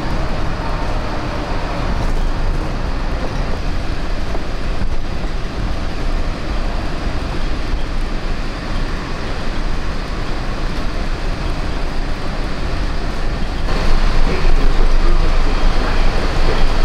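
Walt Disney World monorail running along its beam, heard from inside the car: a steady rumble and rush of running noise that gets louder about three-quarters of the way through.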